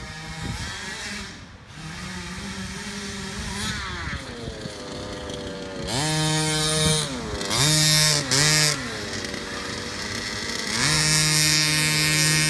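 Small two-stroke engine of a radio-controlled car running, revved hard three times, with the pitch falling away between bursts as the throttle is let off.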